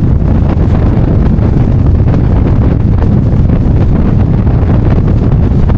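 Strong gusty wind buffeting the microphone, a loud, steady low rumble.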